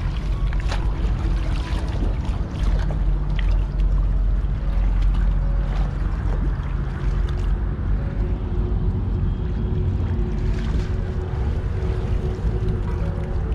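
Splashing and sloshing as a person wades through shallow muddy water, over a steady low rumble.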